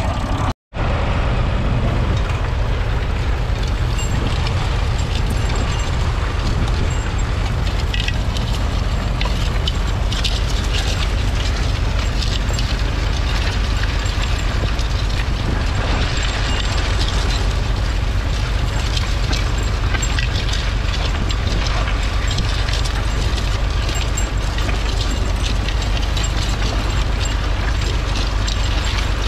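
Massey Ferguson 35's 2.5-litre three-cylinder diesel engine running steadily under load, pulling a two-furrow mounted plough through the soil, with a busy clatter over the engine note. The sound drops out briefly just under a second in.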